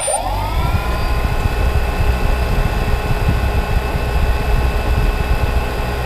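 3DR Solo quadcopter's motors spinning up, their whine rising within the first half second, then running steady at speed, with propeller wash buffeting the microphone as a heavy low rumble.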